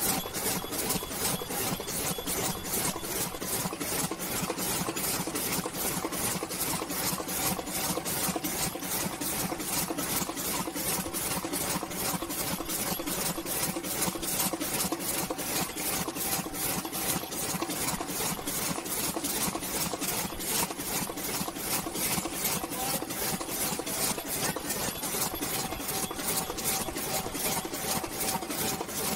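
Debao 138S high-speed paper cup machine running in production, its rotary forming stations cycling in a fast, even clatter over a steady hum.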